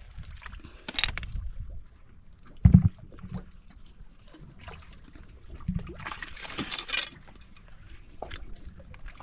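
Water splashing and trickling in short bursts, with a dull low thump nearly three seconds in that is the loudest sound.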